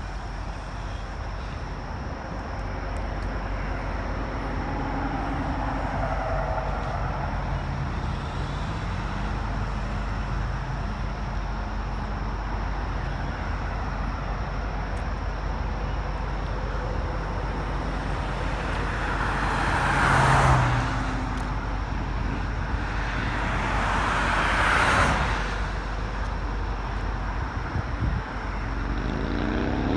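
Roadside traffic: a steady low rumble, with two passing vehicles swelling and fading about twenty and twenty-five seconds in. Near the end a rising whine starts.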